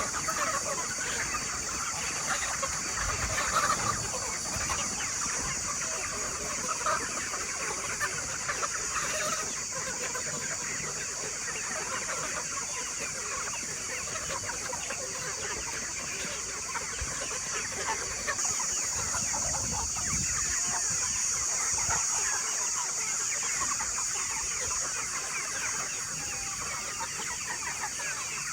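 A flock of chickens clucking and chirping, many short calls overlapping without pause, over a steady high-pitched hiss.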